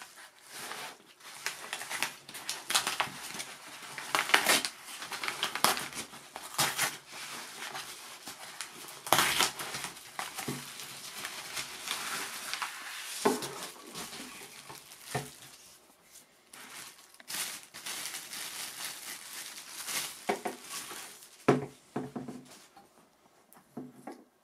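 Padded paper mailer envelope crinkling and rustling as it is torn open by hand and a plastic-wrapped item is pulled out, in irregular loud crackles. Near the end the crinkling stops and a few separate knocks are heard.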